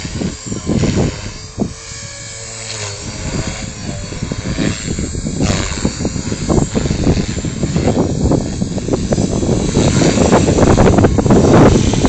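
Align T-Rex 450 electric RC helicopter flying 3D aerobatics: the whine of its rotor and motor bends in pitch as it manoeuvres. Wind buffets the microphone throughout, a ragged rumble that grows loudest near the end.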